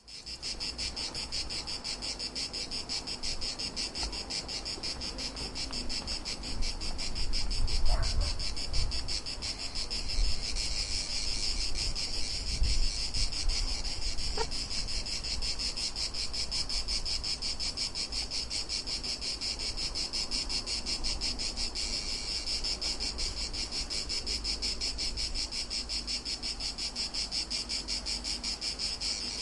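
Cicadas buzzing in a continuous high-pitched drone with a fast, even pulse. A couple of brief faint chirps from another animal come through about 8 and 14 seconds in.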